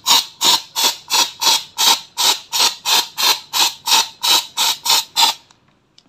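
Brush scrubbing dirt and mouse-nest debris out of a washing machine's plastic housing, in quick even strokes about three a second that stop shortly before the end.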